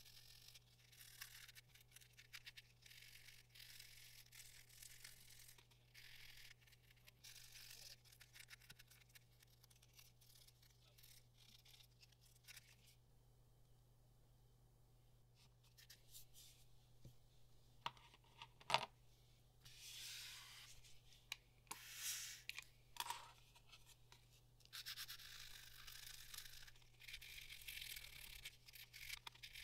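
Faint crackly rasping of sticky plastic film being slowly peeled off cast resin pieces, in stretches with a pause in the middle. A few light clicks of the hard resin pieces being handled come just before the second stretch.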